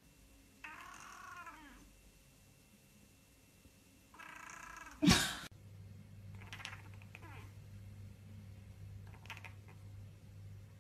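Domestic cat meowing twice, each meow about a second long. Just after the second meow comes a sudden loud knock. A steady low hum follows, with a few short, faint cat calls.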